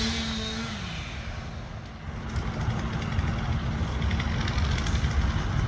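A large vehicle engine idling steadily, a low rumble with a constant hum, growing louder about two seconds in.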